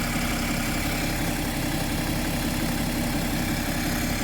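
BMW F10 535d's N57 3.0-litre twin-turbo straight-six diesel idling steadily, running after a fuel filter change while the new filter is checked for leaks.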